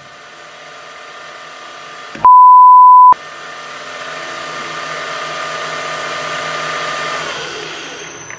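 Milling machine spindle spinning free with only the stub of a snapped high-speed-steel ball-nose end mill in it: a steady motor whine that falls in pitch and dies away near the end as the spindle runs down. About two seconds in, a very loud single beep lasts under a second.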